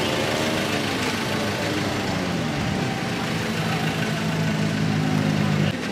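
A motor scooter engine running. Its pitch rises and falls over the first two seconds, then settles into a steady idle, and the sound drops off suddenly near the end.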